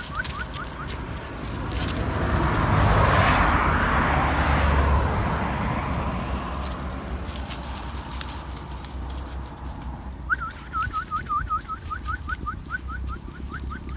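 A vehicle passes on the nearby road, swelling and fading over a few seconds. A high warbling call repeats rapidly several times a second at the start and again in the last few seconds.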